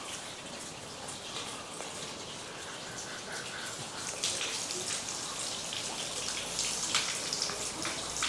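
Mineral spring water trickling and splashing, a steady spatter of small drops and splashes that grows louder about four seconds in.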